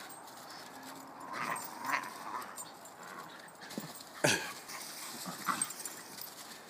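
Two small dogs scuffling and scrabbling through dry fallen leaves while playing. About four seconds in there is a sharp yip that drops quickly in pitch, with a few smaller dog noises around it.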